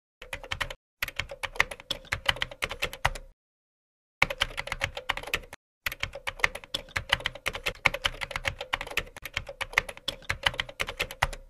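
Rapid keystrokes on a computer keyboard, several a second, in four runs with short silent breaks between them.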